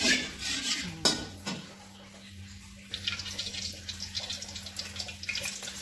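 Hot cooking oil in a wok, a brief hiss and a sharp knock in the first second, then about three seconds in sliced garlic drops into the oil and starts sizzling with a dense crackle.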